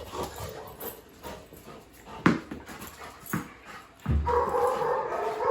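A dog whimpering and yipping, loudest from about four seconds in, with a few short knocks before that.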